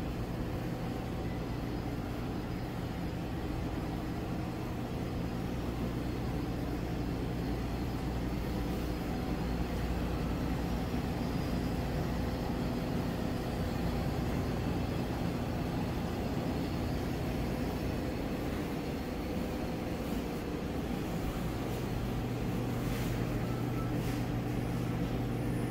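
Steady drone of an airliner cabin: an even rushing noise with a low, constant hum.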